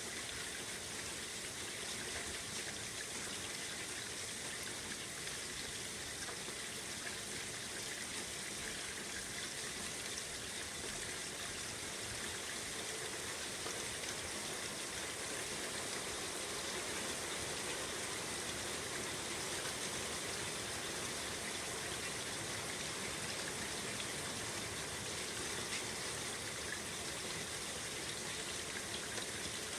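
Steady rain falling, an even patter and hiss without a break.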